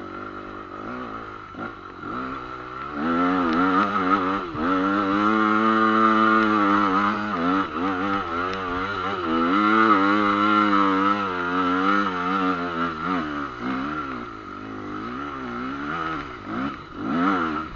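Motorcycle engine running under throttle, its pitch rising and falling constantly as the revs change. It gets loud about three seconds in and eases off in the last few seconds.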